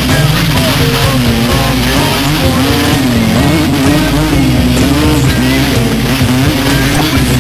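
A vehicle's engine and road noise while driving, mixed with rock music.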